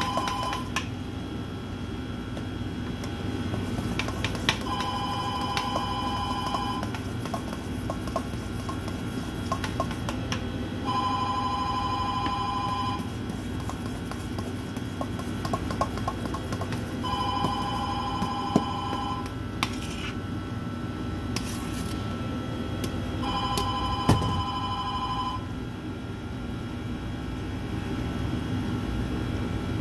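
A telephone ringing in its usual two-seconds-on, four-seconds-off pattern: the tail of one ring at the start, then four full rings about six seconds apart, over a steady low hum.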